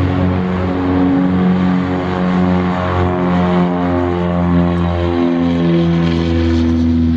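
Piper PA-34-200T Seneca II twin-engine piston aircraft at full takeoff power on its takeoff roll. Both engines and propellers make a loud, steady drone, with a slow wavering beat between the two engines.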